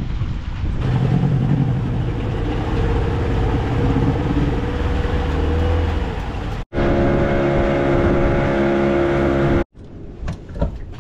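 Small 15-horsepower tiller outboard motor running steadily, pushing the boat along with water rushing past the hull. Near the end it cuts off abruptly, leaving a quieter stretch with wind and a few light clicks.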